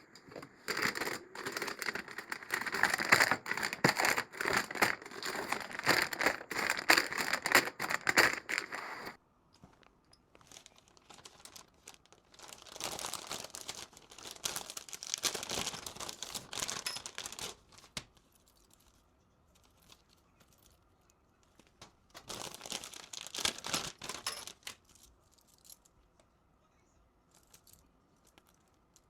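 Plastic packaging being torn open and crinkled: a dense run of loud crackling for about the first nine seconds, then two shorter, quieter spells of rustling.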